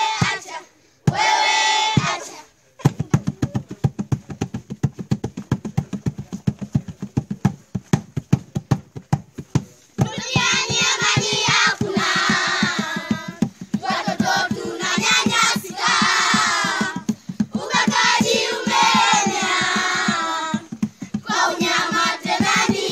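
Hand drum beaten in a fast, steady beat, played alone for several seconds after a short sung phrase. About ten seconds in, a group of children starts singing together over the drum, in phrases with short breaks.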